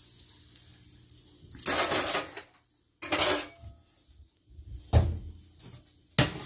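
Metal tongs and a nonstick frying pan clattering on an electric stovetop: four separate clanks and scrapes, at about two, three, five and six seconds in, the one near five seconds a heavier thud.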